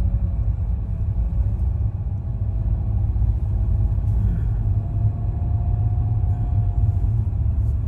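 Steady low rumble of a car on the move, heard from inside the cabin, with a faint engine hum that slowly rises in pitch.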